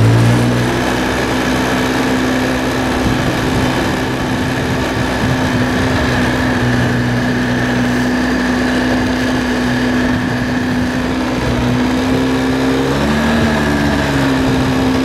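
Polaris Sportsman 700 ATV engine running at a steady pace in low range, with a faint high whine above it. Near the end the engine speed dips briefly, then picks back up.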